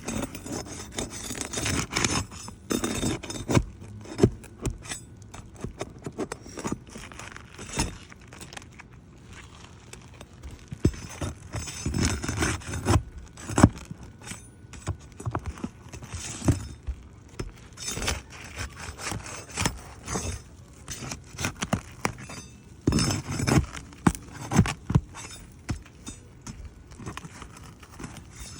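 Flat bar and hands working under asphalt roof shingles to pry them up: irregular scraping and crackling with sharp knocks and clinks throughout.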